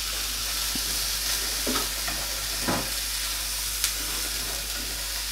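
Diced red onion sizzling in spray oil in a hot frying pan, with a few soft knocks and scrapes of a spatula stirring it.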